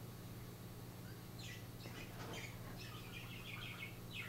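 Faint bird chirping: scattered short high chirps, then a quick run of repeated chirps about three seconds in, over a steady low hum.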